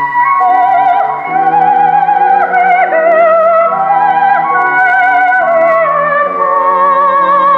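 Soprano singing a florid line with wide vibrato over held orchestral notes, with a flute line above, played back from a 1946 78 rpm shellac record on an EMG Mark Xb acoustic horn gramophone with a thorn needle, which gives a narrow, treble-shy sound.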